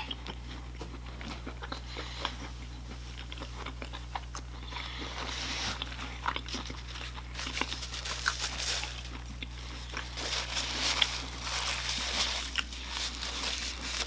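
A person chewing and biting into crunchy fried food close to the microphone, with irregular crisp crunches and clicks that are busiest in the second half. A low steady hum runs underneath and partly drops out near the end.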